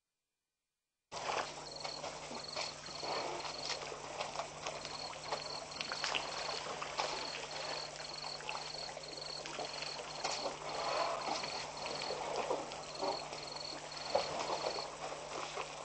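Waterhole ambience with a herd of African elephants drinking: irregular shuffling, sucking and splashing sounds at the water's edge. Over it run repeated short high pips, about three a second in runs with short gaps, and a steady low hum; the sound cuts in abruptly about a second in.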